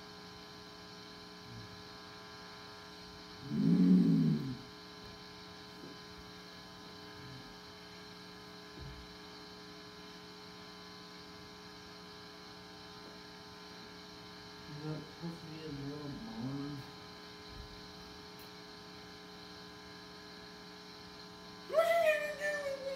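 Steady electrical mains hum, a stack of constant tones. It is broken by short vocal sounds from a man: a loud one about four seconds in, a few brief ones about fifteen seconds in, and a loud cry that falls in pitch near the end.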